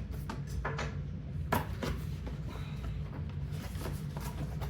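Cardboard box being opened by hand: a few short knocks and rustles as flaps and packing are handled, the sharpest about a second and a half in, over a steady low hum.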